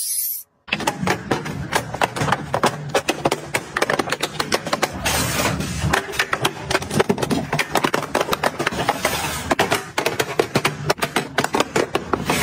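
Rapid, irregular clicking and clattering of small hard items being handled and set down, several clicks a second, starting after a brief moment of silence.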